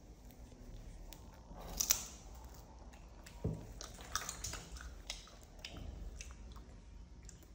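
Baby macaques biting and chewing crunchy yellow snack pieces: irregular crisp crunches and clicks, the loudest about two seconds in.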